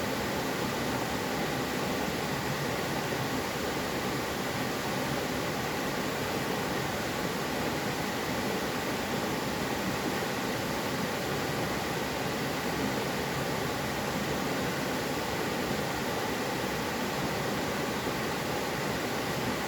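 Mountain valley stream flowing, a steady rushing of water with no breaks.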